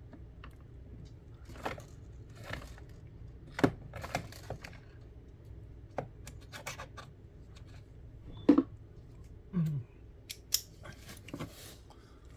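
Small parts and tools being handled on a workbench during the teardown of a plastic diaphragm pump: irregular clicks, taps and short scrapes, with two sharper clicks about a third of the way in and again about two-thirds in.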